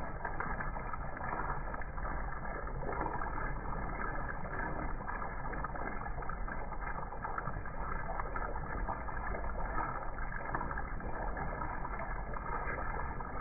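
Thick chicken gravy simmering in a kadai: a steady low bubbling with faint scattered pops as it cooks down and thickens.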